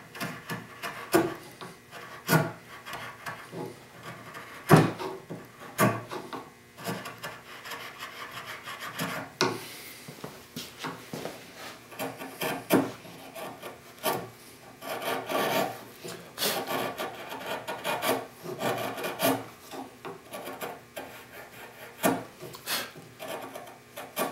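Sharp bench chisel paring the end-grain shoulder of a sipo (African mahogany) tenon by hand: irregular scraping strokes with sharp clicks as the blade shaves the wood.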